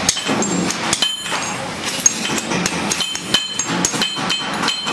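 A fast, uneven run of hammer blows on stainless steel sheet, each strike with a bright metallic ring, as a milk can is shaped by hand.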